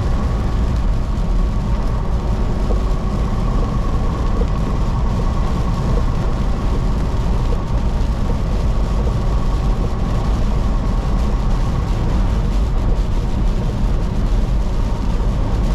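Semi-truck cab interior at highway speed: a steady low rumble of the diesel engine and tyres on the road, with a faint steady whine.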